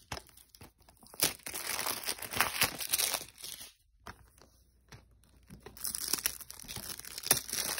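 Plastic crinkling and rustling as a DVD case is handled and turned over, with light clicks and taps from the case, in two bouts with a quiet gap between them.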